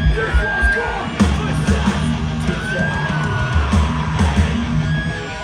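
Thrash metal band playing live and loud: a distorted electric guitar riff over bass and drums.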